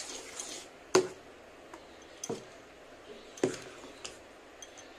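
A spoon stirring dosa batter in a steel bowl, clinking against the bowl's side a few times, the loudest knock about a second in.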